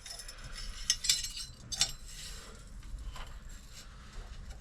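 Light metallic clinks and clicks of small metal fork parts (clip, bushings, seal) being worked off a KYB fork tube by hand: a few sharp clicks around a second in and again just under two seconds in, and a fainter one a little after three seconds.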